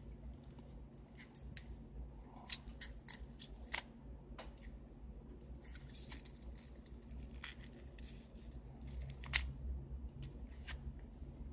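Small metal repair tools clicking, tapping and scraping against a smartphone's frame and internal parts during disassembly: scattered sharp ticks, a few louder ones, with a low steady hum beneath.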